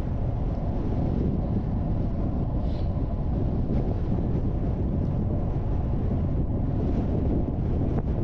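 Wind rushing over the microphone while cycling along a gravel path, a steady low rumble.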